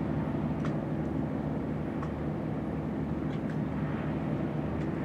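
Ship's diesel engine running with a steady low drone.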